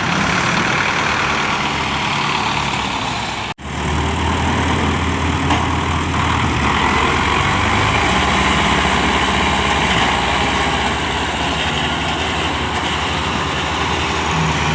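Tractor diesel engine running loudly, its engine note shifting now and then as it works to free the stuck tractor. The sound drops out for a split second about three and a half seconds in.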